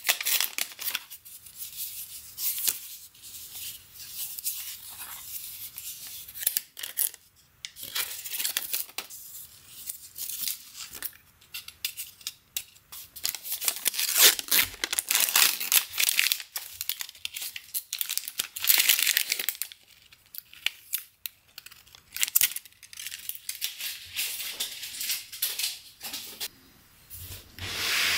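Paper protective wrap being peeled and torn off an Apple USB-C power adapter: irregular crinkling and tearing rustles. Near the end a louder handling noise with a low thud.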